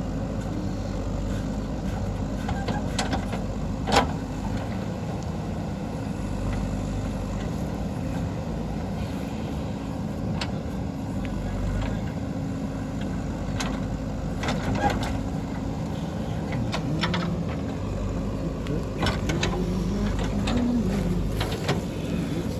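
JCB 3DX backhoe loader's diesel engine running steadily while it digs, with sharp knocks from the digging, the loudest about four seconds in, and the engine note briefly rising under load near the end.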